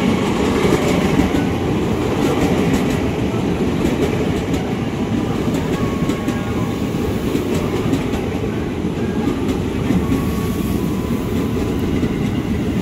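JR 205 series electric multiple-unit commuter train running past at speed: a steady, loud rumble of the passing cars, with wheels clicking over the rail joints.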